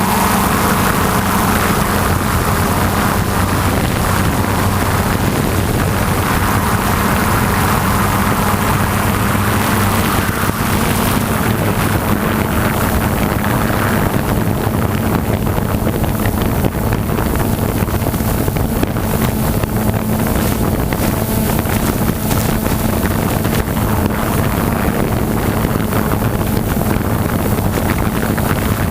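Aircraft engine droning steadily at a low pitch, with wind buffeting the microphone.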